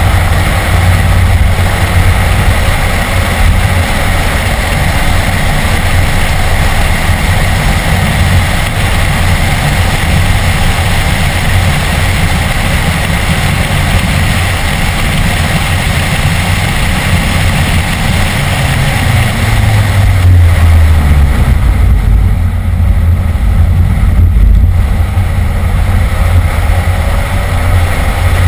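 BMW E46 M3's 3.2-litre straight-six heard from inside the cabin under hard track driving, engine running loud with road and wind noise. The engine note climbs about two-thirds of the way through, then eases briefly.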